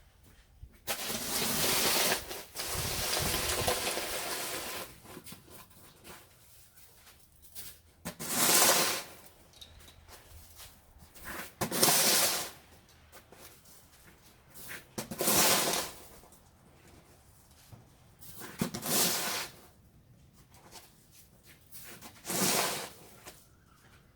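Snow shovel scraping icy, slushy snow along a driveway: one long push near the start, then five shorter scraping strokes about every three and a half seconds.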